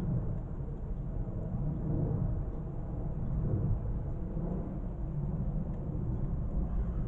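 Low, uneven outdoor rumble, such as wind on the microphone or distant traffic, with no clear bird calls standing out.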